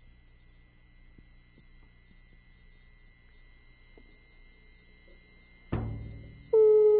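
Electronic tones: a steady high pure tone with a fainter one below it and a few faint ticks. Near the end comes a deep boom, then a lower held tone with overtones begins.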